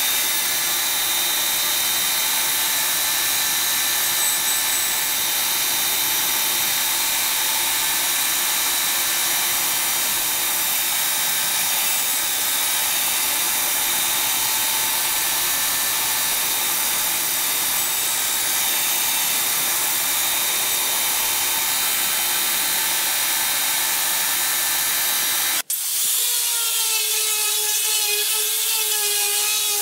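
Bench-top bandsaw running and cutting pallet wood, a steady hum and hiss. About 26 seconds in it cuts off abruptly and an angle grinder with a sanding disc takes over, its motor whine wavering as the disc is pressed onto the wood.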